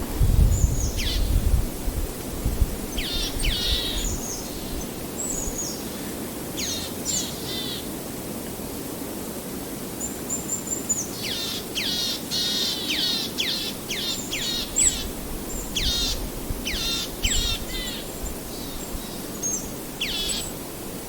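Forest birds chirping, many short high calls sweeping down in pitch, coming in clusters, over a steady wind-and-leaves hiss. A gust of wind rumbles at the start.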